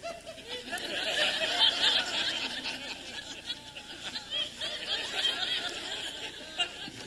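Audience laughing, swelling about a second in and slowly tapering off.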